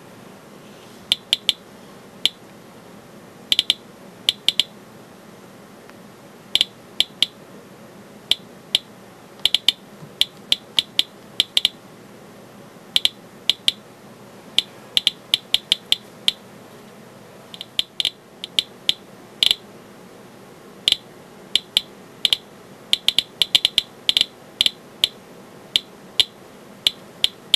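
Radiation Alert Inspector EXP Geiger counter clicking at random intervals, a few sharp clicks a second, now and then in quick clusters. Its pancake probe is picking up the slight radioactivity of the potassium in a potassium-chloride salt substitute.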